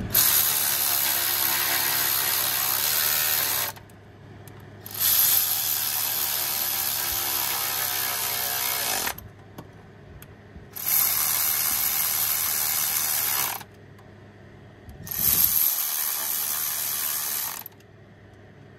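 Handheld power tool run in four bursts of about three to four seconds each, a harsh, bright whirring that starts and stops abruptly with short pauses between bursts.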